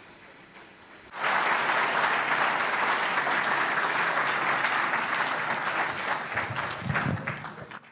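Audience applauding, starting suddenly about a second in and holding steady as a dense patter of claps.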